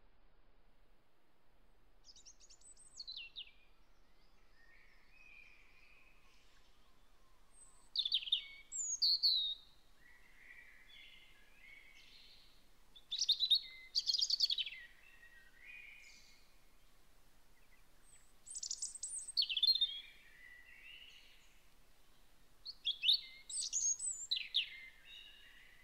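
High-pitched chirping, twittering calls in five short bursts a few seconds apart, many sweeping down in pitch, the first one fainter.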